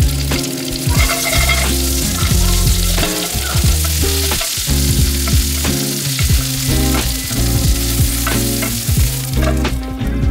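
Green beans sizzling in hot oil in a nonstick frying pan and being stirred with a wooden spatula. Near the end a glass lid goes on the pan and the sizzle drops away. Background music with a steady bass line plays underneath.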